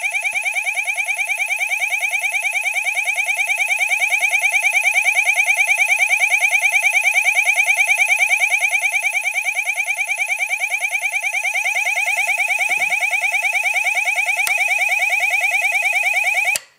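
Fire alarm sounder giving a continuous, rapidly warbling alarm tone, set off by its heat detector sensing heat. It cuts off suddenly near the end.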